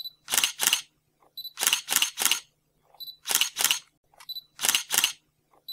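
Camera shutter sound effect repeated over and over. Each time a short high beep is followed by two or three quick shutter snaps, about every second and a half.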